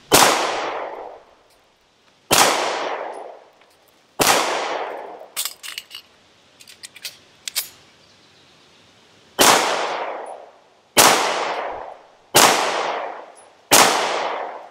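CZ 75 9mm pistol fired three times about two seconds apart, each shot trailing off over about a second. A short run of small metallic clicks and clacks from the mandatory magazine reload follows, then four more shots in quick succession.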